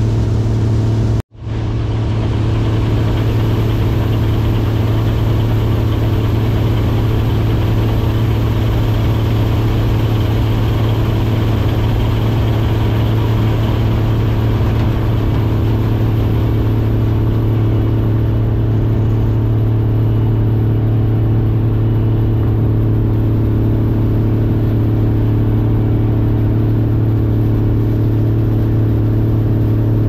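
Combine harvester running steadily with a deep, even hum while its unloading auger empties soybeans into a semi's hopper trailer. The sound breaks off for an instant about a second in.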